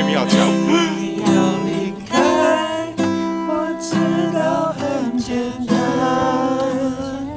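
Acoustic guitar played with a voice singing along.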